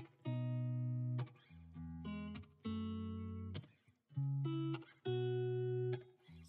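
Background music: guitar chords, each held for about a second before the next one starts.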